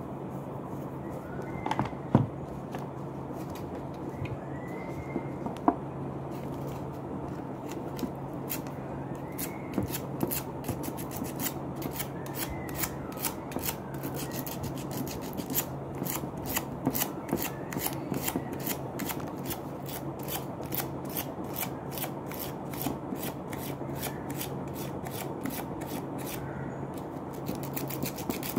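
Emery paper rubbed back and forth over a relay's dirty switch contact to clean it: a run of quick, even scratching strokes, over a steady low hum.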